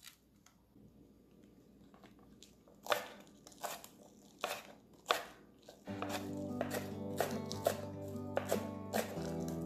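Chef's knife chopping green onions on a cutting board: slow, separate strokes, roughly one or two a second, each a sharp tap of the blade through the stalks onto the board. They begin about three seconds in.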